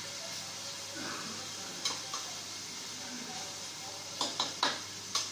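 A metal slotted spatula scraping and knocking against a stainless steel cooking pot as chicken pieces are spread out in hot oil, over a steady frying hiss. A couple of knocks come about two seconds in, and a quick run of four or five clacks near the end.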